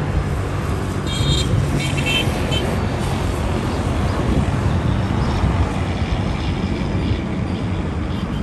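Cabover semi-truck pulling a shipping container past on the highway, its diesel engine giving a steady low rumble over traffic noise, with a few short high-pitched tones about a second and two seconds in.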